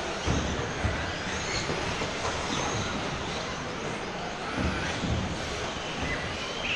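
Electric motors and drivetrains of several 1/10 off-road RC buggies whining, the pitch rising and falling as they accelerate and brake around the track, with scattered low thuds.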